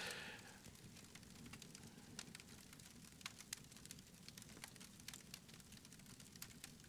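Faint, sparse crackling of a wood campfire, irregular small pops and ticks over a quiet low rumble.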